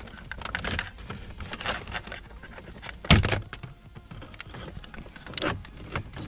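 Hard plastic dashboard trim of a Volkswagen Golf Mk5 being worked loose by hand: rustling and scraping of plastic, with a sharp snap about three seconds in and a smaller one near the end as retaining clips let go.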